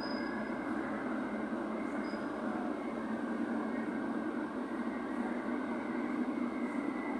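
Ludmilla diesel locomotive and its special train running steadily, an even rumbling noise with two faint, short high squeaks near the start and about two seconds in.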